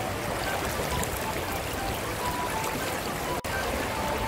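Shallow stream water running steadily over rocks, with a brief cut-out a little over three seconds in.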